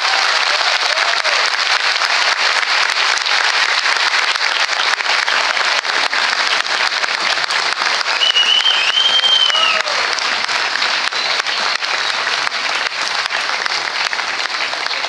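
Audience applauding steadily at the end of a choral and orchestral performance. About eight seconds in, a single high whistle rises and falls over it for nearly two seconds.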